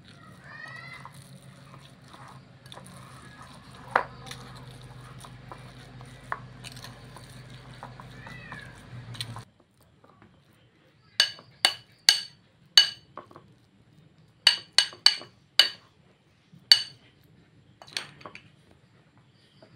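A metal spoon knocking against a ceramic bowl while minced meat is mixed. In the second half it gives about a dozen short, sharp, ringing clinks at an uneven pace. Before that there is a steady low hum.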